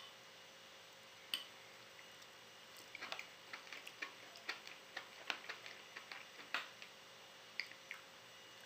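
Knife and fork clinking faintly against a plate while cutting a cod fillet: one sharp click about a second in, then a run of small, irregular clicks through the middle.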